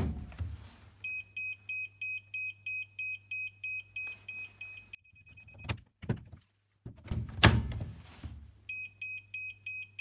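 Makita DC18RA charger beeping, about four short high beeps a second, because the over-discharged Makita BL1830 lithium-ion battery in it won't take a charge. The battery clunks as it slides into the charger at the start, and again about 7.5 s in, after which the same beeping starts again.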